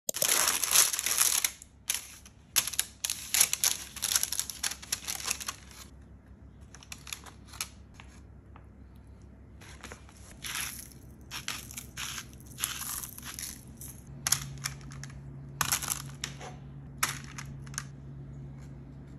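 Parchment-paper liner crinkling and rustling in quick bursts as hands handle it and lay food on it, busiest in the first few seconds and then coming in short spells. A low steady hum comes in about halfway through.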